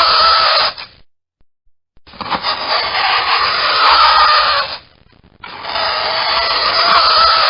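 Fingernails scratching across a chalkboard in long strokes of two to three seconds, with short pauses between: one stroke ends just after the start, then two more full strokes follow, each carrying a wavering squeal.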